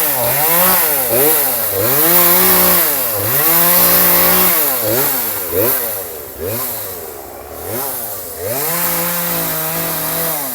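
Two-stroke chainsaw trimming tree limbs. It is revved up and down in quick surges about twice a second, and a few times it is held at a steady high pitch for a second or two.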